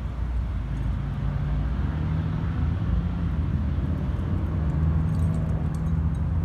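Steady low rumble of road traffic, with a few faint ticks about five seconds in.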